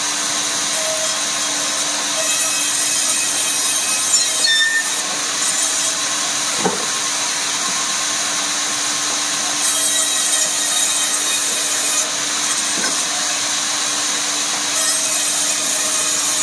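Power saw running steadily, its motor humming; three times the sound swells into a louder, higher hiss as the blade cuts through rubberwood.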